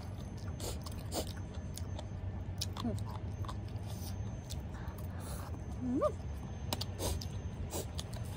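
Close-miked chewing of a noodle salad with crunchy pig's ear, with scattered crisp crunches and mouth clicks. About six seconds in there is one short rising 'mm' from the eater.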